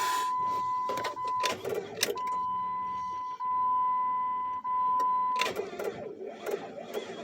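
A steady high electronic warning tone sounds in long stretches with a short break, then stops about five and a half seconds in. Scattered clicks and handling noise follow.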